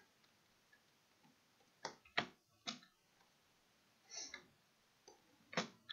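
A few faint computer mouse clicks: three in quick succession about two seconds in, and another near the end.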